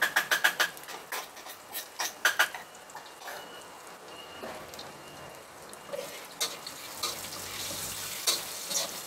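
Chilies, shallots and garlic frying in hot oil in a wok, with a quiet sizzle underneath. A quick run of ringing metallic taps comes at the start and again about two seconds in, as a spoon adds seasoning. From about six seconds in there are scattered clinks and scrapes of a metal spatula stirring in the wok.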